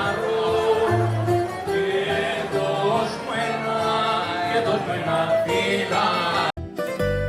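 Background music with singing voices over instruments, cutting off suddenly near the end into a different track with plucked strings.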